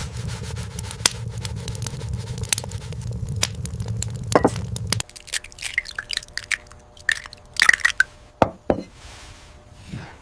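A steady low rumble that cuts off suddenly about five seconds in, followed by scattered sharp crunching and cracking sounds.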